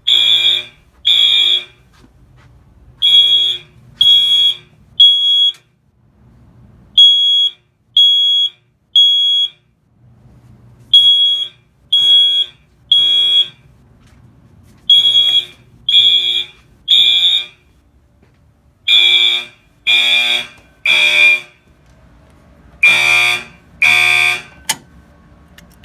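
Fire alarm horns synchronized by a Wheelock MDL module, sounding the temporal code-3 evacuation pattern: three shrill half-second beeps about a second apart, a pause, then again. The last round stops after two beeps, and a sharp click follows.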